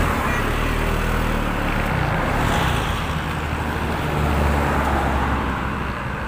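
Vehicle engine and road noise heard on the move, with traffic around and wind on the microphone. The low engine rumble swells about four seconds in.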